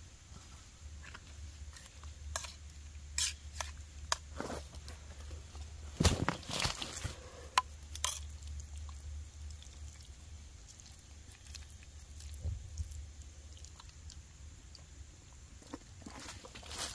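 A metal spork clinking and scraping in a stainless steel camp pot as stew is stirred and scooped. The clicks and taps are scattered, with a louder cluster of knocks about six seconds in.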